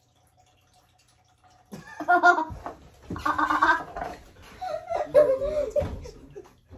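A person gagging loudly in two heaves after tasting a drink, followed by a wavering, drawn-out voice and laughter.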